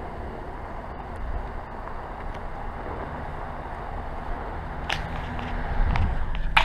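Vehicle driving slowly on a snow-packed road: a steady low rumble of engine and tyres, with a faint click about five seconds in.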